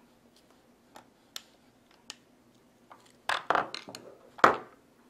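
The aluminum square-stock quadcopter frame and its screws being handled on a work surface. There are a few light ticks, then a quick run of louder metallic clanks and knocks a little after three seconds in, and one loudest knock about four and a half seconds in.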